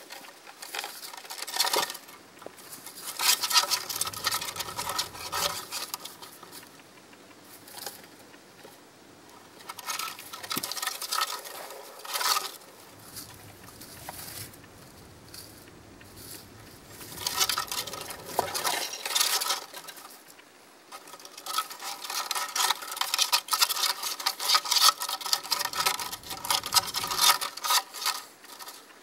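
Wooden gerbil running wheel spinning and clattering as gerbils run in it. The clatter comes in runs of a few seconds that stop and start several times, the longest near the end.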